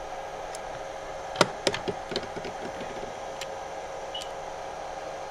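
Steady fan-like hum and hiss from radio bench equipment, with a faint steady tone, broken by a quick run of sharp clicks and knocks about one and a half to two and a half seconds in, the first click the loudest.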